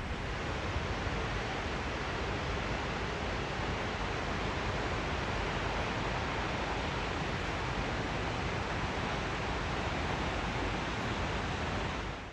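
Fast-flowing river water rushing steadily, a dense even roar that cuts off sharply near the end.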